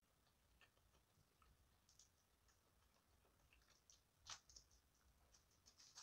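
Near silence with a few faint, scattered clicks and ticks, the most distinct about four seconds in.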